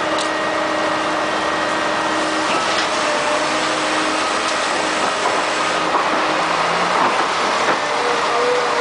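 Concrete mixer truck and concrete pump running together: a steady, loud mechanical din of diesel engines and machinery, with a few faint knocks.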